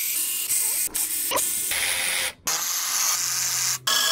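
Cordless electric ratchet running in several bursts, with short stops between them about a second in, midway and near the end.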